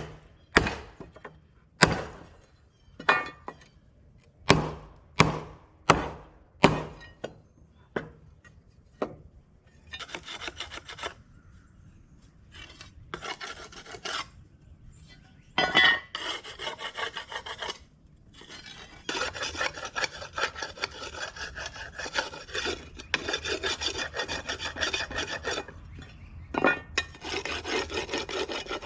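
About a dozen sharp strikes, like hand-tool blows on a steel part, then stretches of steady scraping and rubbing on metal, the longest near the end. This is hand prep work on a backhoe part.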